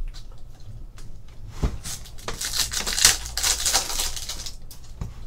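Foil wrapper of a Bowman Chrome baseball card pack being torn open and crinkled in the hands, with a few sharp clicks. The crinkling is loudest from about two to four and a half seconds in.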